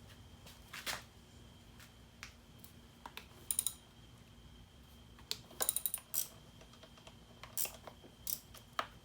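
Scattered light metallic clinks and taps of hand tools and small parts, in short clusters: a few single clicks and quick rattling runs of several.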